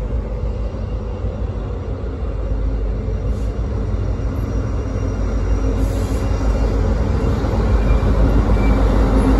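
Norfolk Southern diesel locomotives approaching at the head of a ballast train, a steady low engine rumble growing louder as they draw near.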